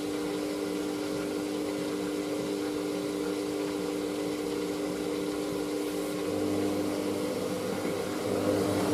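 Hoover SIX AAA160 washing machine's drum motor running steadily as it turns a load of heavy blankets to distribute it before the final spin. A lower hum joins about six seconds in, and the sound grows slightly louder near the end.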